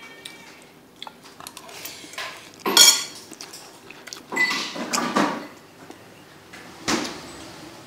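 Metal spoon knocking against ceramic plates and bowls as a meal is eaten: scattered small clicks, a loud ringing strike about three seconds in, a rougher, louder stretch around five seconds, and one more sharp knock near the end.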